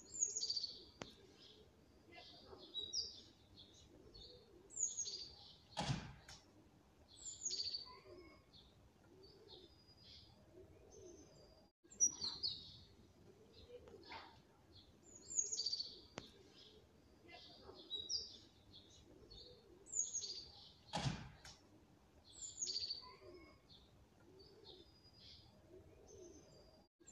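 Small birds chirping, with short high calls that slide downward. The same sequence of calls, including a sharp click, repeats about every fifteen seconds, with a brief dropout each time it starts over.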